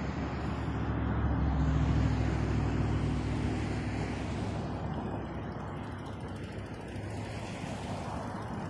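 A motor vehicle passing close by, loudest about two seconds in and then fading, over the low rumble of wind on the microphone.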